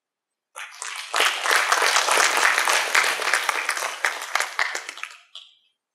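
Audience applauding, many hands clapping: it starts about half a second in, holds for several seconds and dies away near the end.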